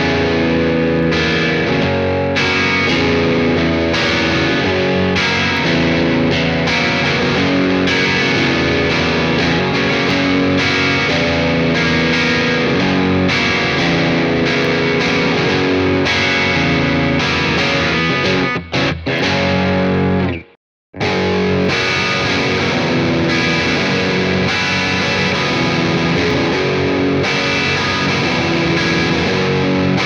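Overdriven electric guitar riff played on a Fender Stratocaster's bridge pickup (Fat '50s single-coils) through a Bogner Shiva amp with EL34 valves and a 2x12 cabinet. After a brief silent break about twenty seconds in, the same passage starts again on a Gibson Les Paul '58 reissue's bridge humbucker.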